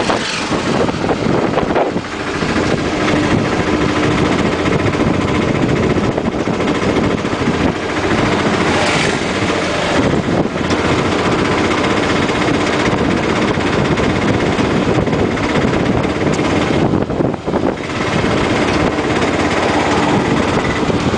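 Tuk tuk (auto-rickshaw) small engine running steadily while driving, mixed with wind and road noise in the open cab.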